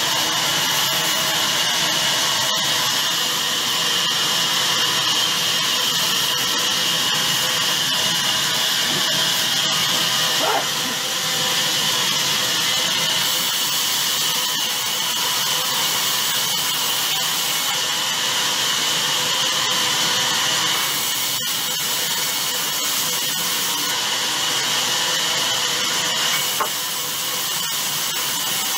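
Sawmill band saw running and ripping a bark-covered log slab lengthwise, a steady dense noise with a constant high-pitched whine over it.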